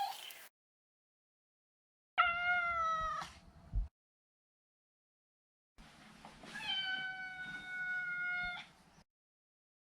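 Maine Coon cat meowing: two drawn-out meows, the first about a second long a couple of seconds in, the second about two seconds long, each held at a steady pitch that sags slightly at the end.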